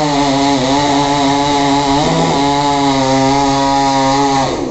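Chainsaw engine running steadily at high revs, its pitch wavering slightly and shifting briefly about two seconds in. It stops abruptly just before the end.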